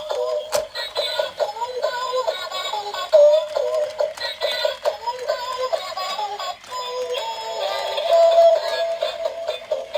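A thin, tinny electronic song with a synthesized singing voice, like the built-in tune of a dancing electric toy, with a single click about half a second in.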